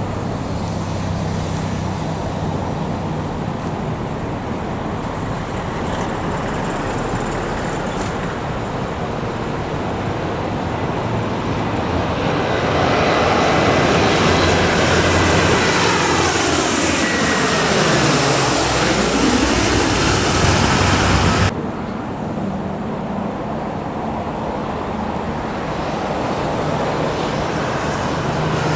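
The four turboprop engines of a C-130H Hercules on landing approach, growing louder as it passes low overhead with a sweeping sound, cut off abruptly about 21 seconds in. After the cut, a smaller twin-engine turboprop is heard approaching, getting louder near the end.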